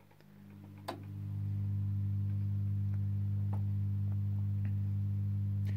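Low mains hum from a 1933 Reico Europa tube radio chassis just switched on, swelling up over about a second and a half and then holding steady as the set powers up, with a few faint ticks.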